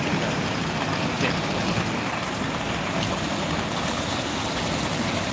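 Steady rush of muddy floodwater and heavy rain.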